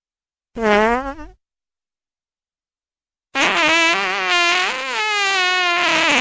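Two fart sounds. A short one of under a second comes first, then about two seconds later a long one starts, its pitch wobbling up and down and turning rougher near the end.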